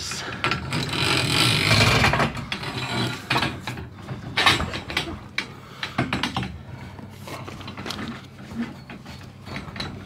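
A new garage-door torsion spring sliding along the steel torsion shaft, with a scraping sound in the first couple of seconds and then a run of metal clicks and rattles as the spring and its end cone are shifted and handled.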